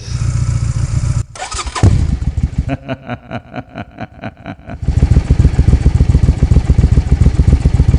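Motorcycle engine sound effects. An engine running cuts off about a second in. A big 1,200 cc motorcycle engine then fires up with a loud burst and idles with a slow, lumpy beat, and about five seconds in it runs louder with a fast, even beat.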